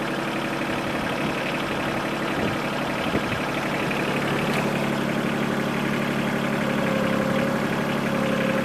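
Yanmar SC2450 compact tractor's diesel engine running steadily at low revs, with a faint steady whine coming in near the end.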